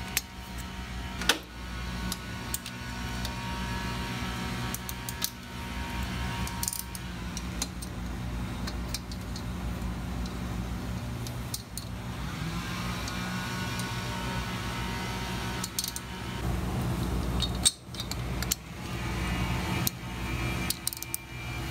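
Scattered metallic clicks and clinks of a 9/16 wrench working the cylinder base nuts of a Harley-Davidson Shovelhead engine as they are loosened a little at a time, over a steady low hum.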